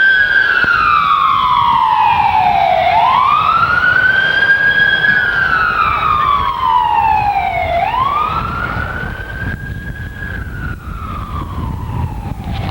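A siren wailing. Each cycle climbs quickly, holds briefly, then slides down over a couple of seconds, repeating about every five seconds over a low rumble. It grows somewhat fainter over the last few seconds.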